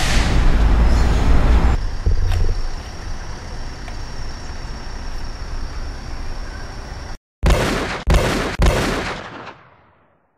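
Sound design of a shootout: a low rumble after a gunshot, then a thin high ringing tone held for several seconds. After a sudden drop to silence come three sharp gunshots about half a second apart, each dying away, fading to silence.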